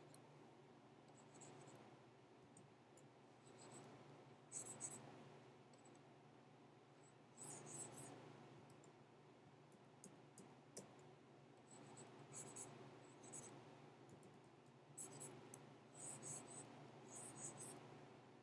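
Faint scratching of a stylus drawing on a graphics tablet, in short strokes every few seconds that come thickest near the end, over a low steady hum.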